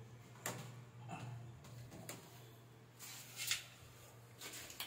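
A few faint knocks and clicks over a steady low hum. The loudest knock comes about three and a half seconds in.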